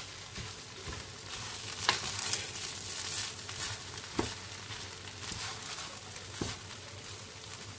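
Jollof rice being stirred with a wooden spatula in a frying pan, scraping through the rice over a steady soft sizzle, with a few sharp knocks of the spatula against the pan.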